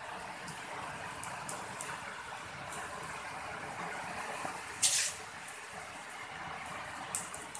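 Steady hissing background noise with a sharp knock about five seconds in and a lighter click near the end.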